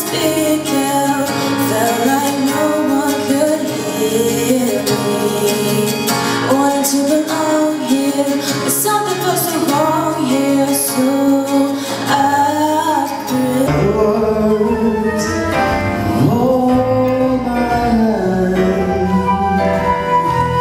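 A young woman singing a slow ballad solo into a microphone over a recorded accompaniment, her voice carried through the hall's sound system. About 14 s in, the music changes to a fuller backing track with deep bass, and singing goes on over it.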